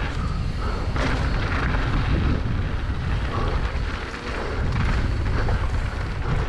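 Downhill mountain bike riding down a dirt jump trail: a steady low rumble of wind buffeting the camera microphone, with the noise of tyres on dirt and a few brief rattles of the bike.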